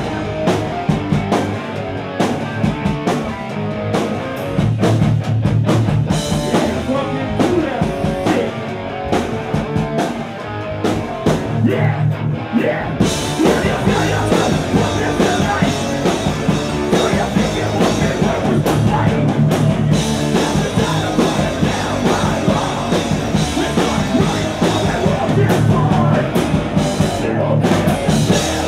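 Live heavy rock band playing loud, with distorted electric guitar, a pounding drum kit and cymbals, and vocals into a microphone.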